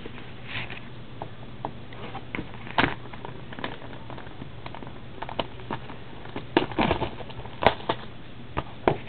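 Fingers working open a sealed Upper Deck The Cup hockey card box: irregular scratches, taps and sharp clicks of nails and fingertips on the box and its lid, more frequent in the second half.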